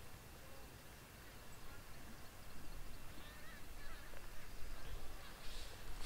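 Faint wild bird calls, several short calls starting about halfway through, over a low steady background rumble, with a brief rustle near the end.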